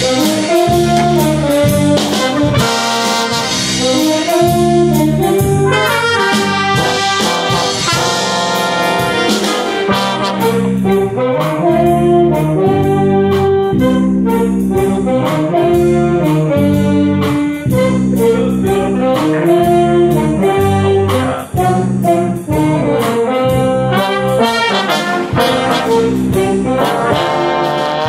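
A brass band playing an upbeat tune together, with a trombone close to the microphone. The playing breaks off only briefly about three-quarters of the way through.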